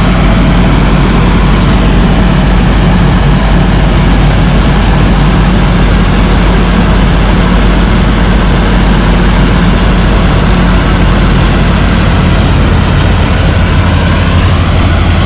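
A heavy farm machine's diesel engine running loudly and steadily, with a deep hum and a broad mechanical rush. The low hum shifts slightly about twelve seconds in.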